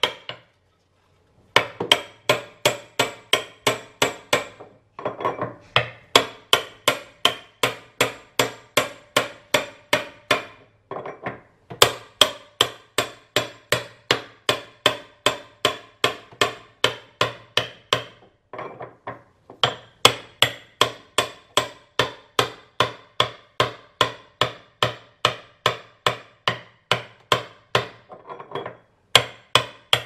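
Hammer striking a part held at the central hub of a washing machine tub, in steady runs of about three sharp taps a second, broken by brief pauses three times.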